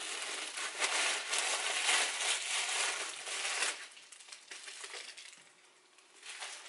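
Clear plastic bag crinkling and rustling in the hands for about four seconds, then falling quiet.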